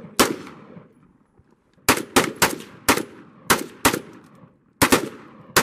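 About ten gunshots from a firearm, fired singly in quick succession: one shot, a pause of about a second and a half, then a fast string a fraction of a second apart. Each shot has a short echo trailing after it.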